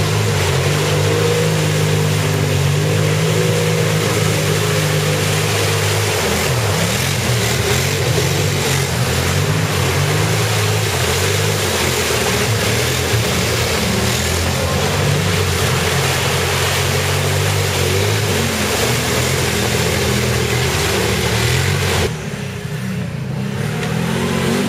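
ATV engines revving hard and changing pitch as the quads churn through deep mud and water, with a steady rush of spray and sloshing mud. The sound changes abruptly near the end as the shot cuts to another machine on a drier trail.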